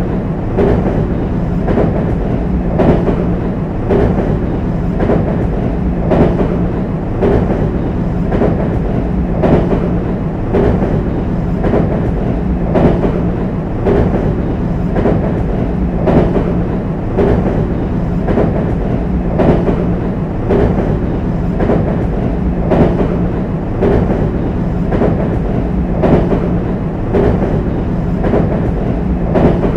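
JR West 225 series train running over a steel railway bridge: wheels clacking regularly over the rail joints, about once a second with a louder clack every few seconds, over a steady running rumble.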